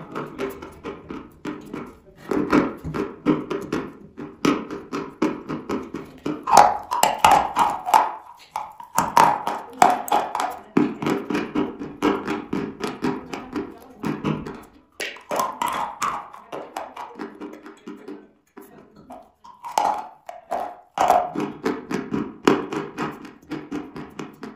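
Dry chalk being bitten and chewed close to the microphone: rapid runs of sharp crunches that pause briefly now and then. A pitched sound, voice- or music-like, runs underneath.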